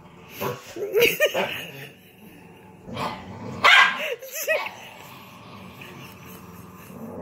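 Dog barking and yipping in short, pitch-arching calls during play: a few quick barks about a second in, then louder barks around four seconds in.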